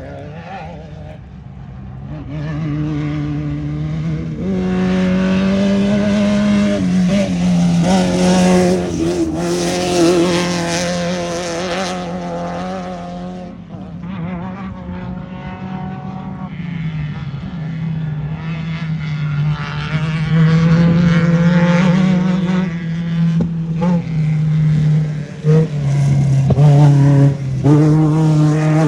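Off-road race vehicle's engine running hard, its pitch rising and falling with the throttle. It gets louder twice, once about a third of the way in and again toward the end, where the pitch steps up and down quickly.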